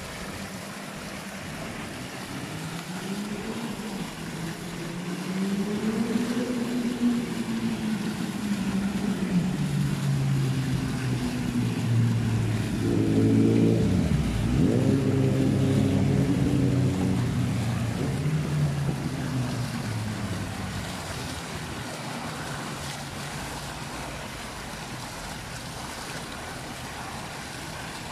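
Fountain water splashing and pouring steadily into its basin. A motor vehicle's engine passes by over it, rising in pitch and loudness, loudest about halfway through, then fading away.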